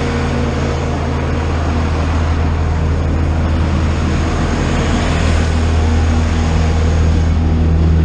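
Engine of a loaded farm truck running at a steady drone on the road, with tyre and road noise, swelling slightly near the end.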